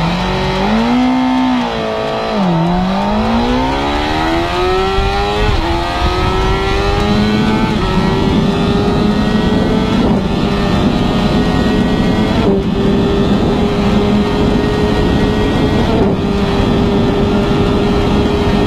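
Honda CBR1000RR inline-four engine at full throttle, heard from on board. The revs climb hard, drop at a gear change about two and a half seconds in, then climb again and hold a steady high note at top speed, with wind rushing past.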